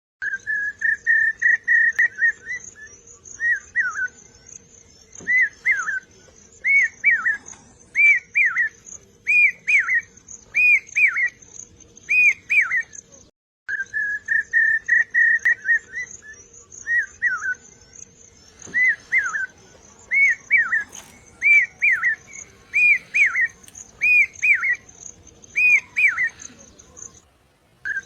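Bird-like whistled song: one held whistle of about two seconds, then a run of short arched notes that rise and fall. The same phrase plays twice, with a brief dropout between, as a looped recording.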